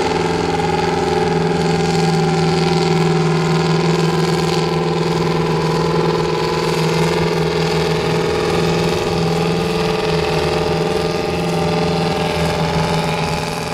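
Kinze 'Big Blue' tractor's Detroit Diesel engines running steadily under load, pulling a plow, with an even, unchanging engine note.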